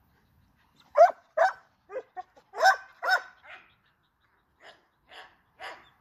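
American pit bull terrier puppy barking, a string of about ten short, fairly high barks that start about a second in, the loudest at first and fainter ones near the end.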